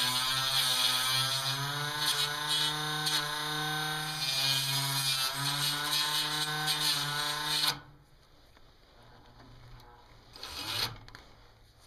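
Small brushed electric motor from a 1960s palm massager, run from a variac, whining with a hiss over it as fine wire is fed into it to be chewed up. The pitch wavers a little, and the motor cuts off suddenly near the end, followed by a brief scrape.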